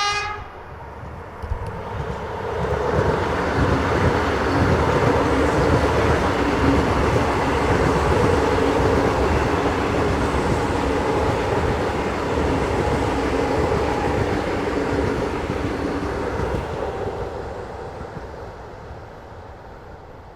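Ivolga (EG2Tv) electric multiple unit train: a short horn blast right at the start, then the train running past, the sound building over the first few seconds, staying loud with a steady hum under the wheel and rail noise, and fading away near the end.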